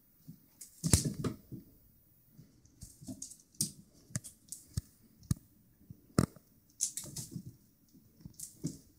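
A kitten pouncing and batting at a feather wand toy on a hardwood floor: scattered light taps, scuffs and rustles at an irregular pace, with one sharper click about six seconds in.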